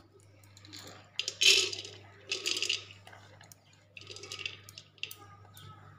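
Washed toor dal (split pigeon peas) being tipped from a metal bowl into a pressure cooker in three or four pours, the grains rattling into the metal pot, with light clinks of bowl against cooker.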